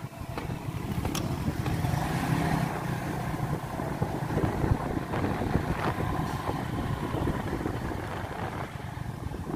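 Motorcycle engine running steadily as the bike rides along a concrete road, with road and wind noise.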